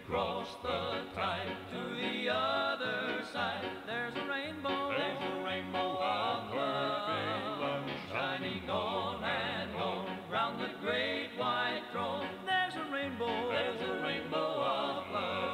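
A 1983 gospel cassette recording playing: a vocal group singing a hymn in a country-bluegrass style, with wavering vibrato and instrumental backing.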